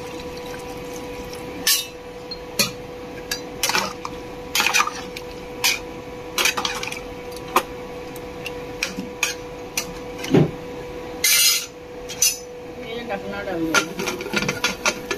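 Metal spoon scraping and knocking against the inside of an aluminium pressure cooker as a mutton and potato curry is stirred: a string of short, irregular clinks and scrapes, with one longer scrape a little past eleven seconds, over a faint steady hum.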